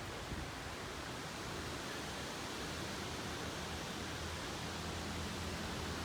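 Steady rushing of wind ahead of a storm, with a faint low hum underneath from about two and a half seconds in.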